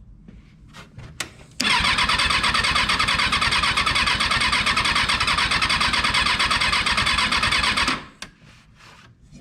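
Rebuilt Kawasaki 636 inline-four engine being turned over by its starter, a loud, fast, even pulsing for about six seconds without catching, cut off suddenly near the end.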